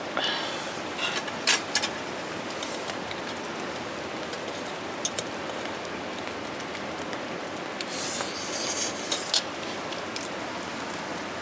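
Steady rain falling, with a few sharp taps scattered through and a brief louder hiss about eight seconds in.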